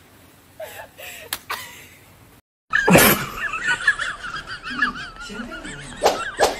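People laughing, one in a long high-pitched wavering shriek, starting with a sudden loud burst about three seconds in; there is another sharp burst near the end.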